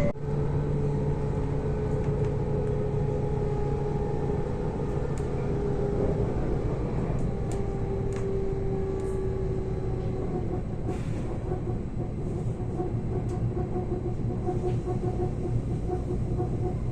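Steady rumble and low hum of a moving public transport vehicle, heard from on board, with a few faint ticks.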